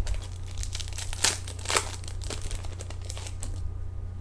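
Hockey card pack wrapper being torn open and crinkled by hand: irregular crackling, loudest about a second and a half in, over a steady low hum.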